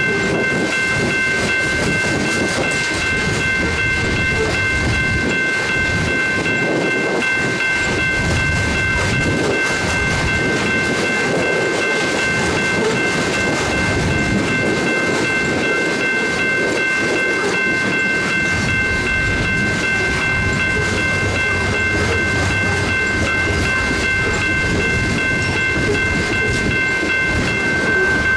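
Freight cars of a coal train rolling past, a steady wheel-and-rail rumble, with a continuous high-pitched squeal held over it.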